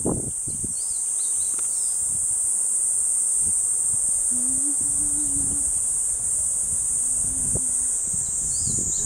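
Steady, high-pitched buzzing of a summer insect chorus in the trees. Low wind rumble on the microphone comes at the start and again near the end, along with a few faint chirps.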